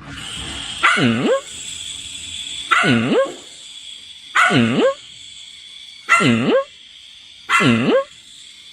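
A dog giving five drawn-out barks, about one every second and a half to two seconds, each one dipping in pitch and then rising.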